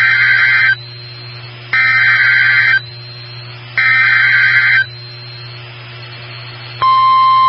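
NOAA Weather Radio SAME alert header: three one-second bursts of buzzy digital data tones, about a second apart, then near the end a steady single-pitched warning alarm tone begins. Together they mark the start of a new warning broadcast.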